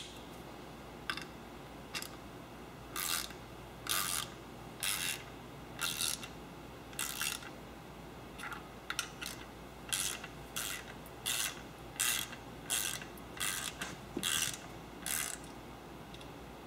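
Small hand ratchet with an extension being worked in short strokes, giving a burst of pawl clicking on each back-swing about once a second, as the oil sump nuts on a VW-based Turbo AeroVee engine are run down and snugged, not yet torqued.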